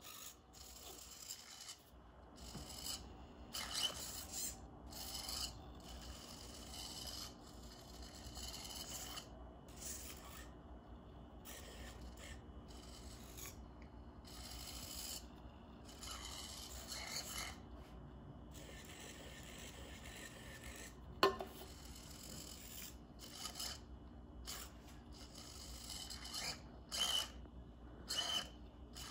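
Small 9-gram hobby servos in a 3D-printed Buddy robot whirring in short raspy bursts as its head turns and tilts, with pauses between moves. A single sharp click comes about three-quarters of the way through.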